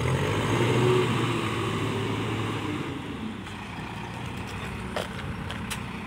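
Manitou MBL 745 backhoe loader's diesel engine running as the machine drives off across the dirt, loudest at first and fading after about three seconds as it moves away.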